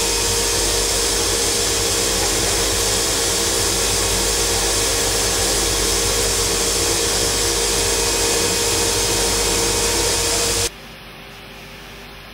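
Grinding wheel of a CNC tool grinder grinding a flute of a steel hob cutter: a steady hiss with a constant hum. About ten and a half seconds in it cuts off abruptly, leaving a much quieter machine hum.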